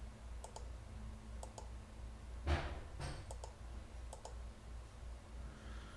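Scattered computer mouse clicks, several in quick pairs, with one louder click about two and a half seconds in, over a faint low hum.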